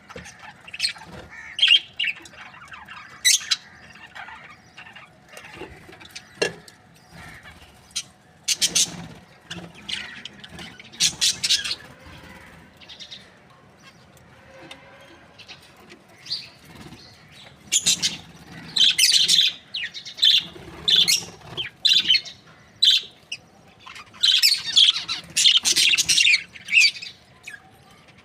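Budgerigars chirping and chattering in short, rapid high calls, scattered at first and coming thick and fast in the second half.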